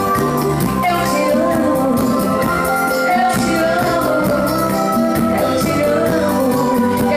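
Live band playing a bolero, with a singer's wavering melodic line over sustained accompaniment and light percussion keeping a steady beat.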